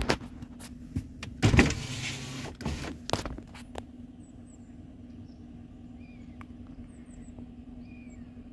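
Steady low hum of a parked vehicle's engine idling, with several sharp clicks and a loud rushing noise lasting about a second, starting about a second and a half in. Faint bird chirps follow in the second half.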